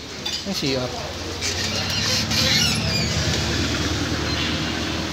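A vehicle engine running steadily, its low hum building about a second and a half in.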